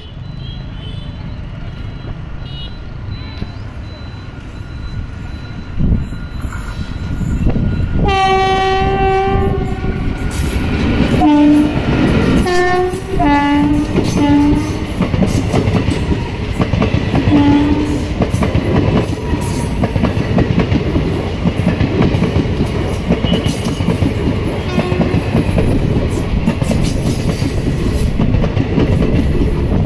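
Passenger express train behind an electric locomotive: the locomotive's horn sounds one long blast about eight seconds in, then a string of short toots. The coaches then pass close by with a steady rumble and clatter of wheels on the rails.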